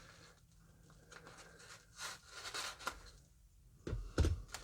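A package being opened and handled by hand: a couple of soft rustles of packaging about halfway through, then a few short knocks and thumps near the end.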